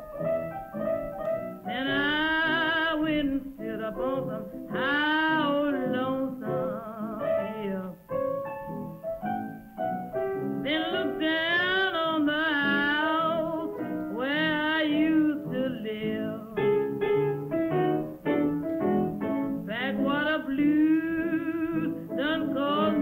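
A 1927 blues record playing: a woman sings slow, drawn-out phrases with a wide vibrato over piano accompaniment, the piano carrying on alone in short gaps between the sung lines. The sound is thin and narrow, as on an old 78.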